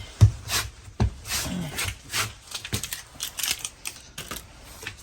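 Irregular rustling and crinkling of packaging as purchases are handled, with a few soft knocks, the sharpest about a quarter of a second in.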